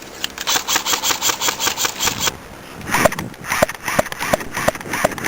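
Airsoft guns firing: a full-auto burst of about nine shots a second that stops about two seconds in. After a short pause comes a slower run of shots, about three a second, each with a slight ringing tone.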